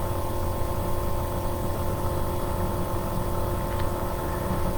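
Steady background hum with several fixed tones over a low rumble, like mains hum or a running appliance.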